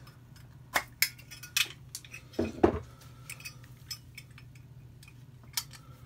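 Metal clicks and clinks as a Zorro single torch butane insert is tried for fit in a Zippo 35 lighter case. There are several sharp separate clicks and a short scrape about two and a half seconds in.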